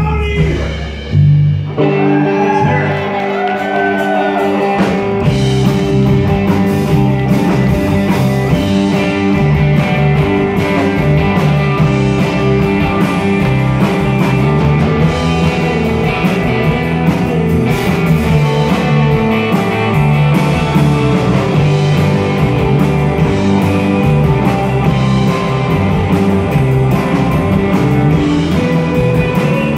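Live rock band playing electric guitars, bass guitar and drums, with a short break about a second in.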